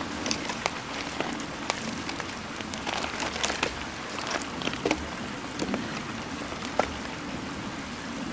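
Campfire of fairly wet wood crackling, with irregular sharp pops and snaps over a steady hiss.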